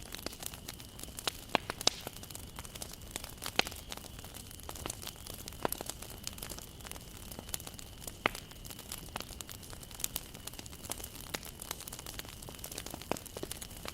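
Wood bonfire burning and crackling, with irregular sharp pops from the burning wood over a soft hiss.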